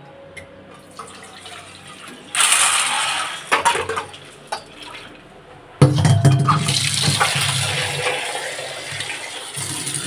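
Water running into steel vessels in a stainless steel kitchen sink, with a few clinks of steel bowls. The water starts about two seconds in, and from about six seconds in a stronger stream pours and keeps running.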